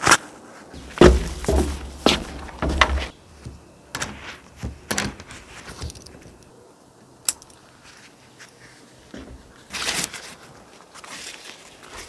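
Camping gear handled by hand: nylon fabric rustling and a cord being stuffed into a small pouch, with scattered clicks and knocks and a low rumble in the first few seconds. A single sharp click comes about seven seconds in, and a louder rustle about ten seconds in.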